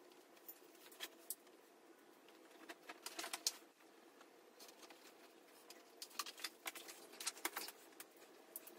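Faint, scattered light clicks and taps in small clusters, as of small parts and hardware being handled during assembly work.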